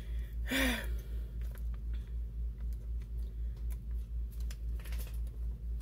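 Scissors snipping and a plastic piping bag of icing being handled: faint, scattered small clicks and crinkles over a steady low hum.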